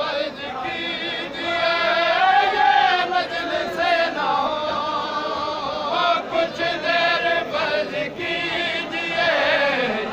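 Men's voices chanting a noha, a Muharram mourning lament, in long drawn-out notes that slowly rise and fall.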